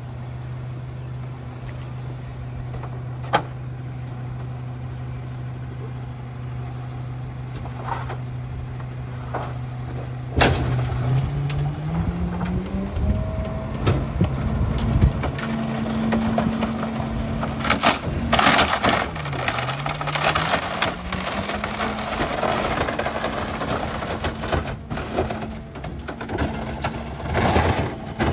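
Autocar ACX rear-loader garbage truck idling, then a sharp knock about ten seconds in as the packer is engaged and the engine speeds up to drive the hydraulics. The packer blade comes down on the load of wood fence boards, crushing them with repeated cracking and snapping over the second half.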